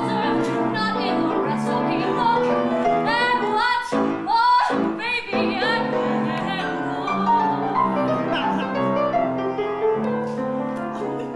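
A woman singing a musical-theatre song in a full, operatic style with live piano accompaniment. Her sung notes glide and swell over steady piano chords.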